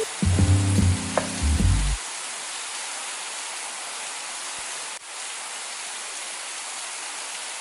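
Steady rain, an even hiss. Calm music plays over it for the first two seconds and then stops, leaving the rain alone, which dips briefly about five seconds in.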